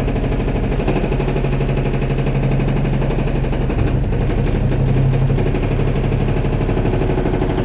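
Washing machine running with a steady hum and a fast, even pulsing. There is no clunking: the owner says the machine is fixed.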